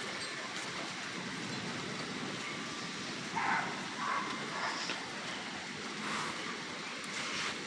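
Steady hiss of heavy rain falling during a thunderstorm. A few short, higher-pitched sounds stand out briefly around the middle.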